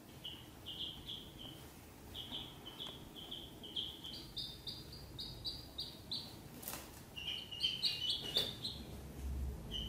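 Ducklings peeping: a continuous run of short, high chirps, several a second, becoming a denser cluster of overlapping peeps near the end. Two brief clicks are heard in the middle.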